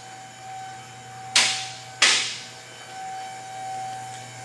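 Two short bursts of a pneumatic impact wrench about half a second apart as lug nuts are run onto a truck wheel, over a steady workshop hum.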